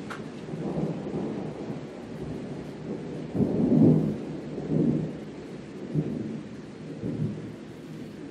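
Thunder rumbling in low rolls. It builds to its loudest about three and a half seconds in, then comes back in several weaker rolls.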